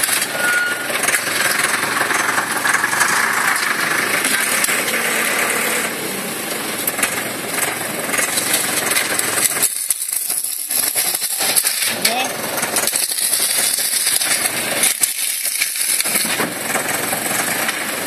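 Scrapyard grapple machine running: a steady engine-and-hydraulic noise with a lot of hiss and some rattling. The low rumble drops away briefly twice in the second half.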